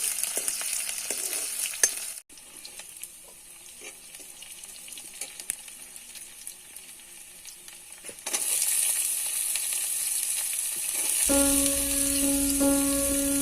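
Food sizzling as it fries in a pan, with scattered clicks of stirring. The sizzle drops away suddenly about two seconds in, stays softer for several seconds, then comes back louder. Background music with a flute-like tone comes in near the end.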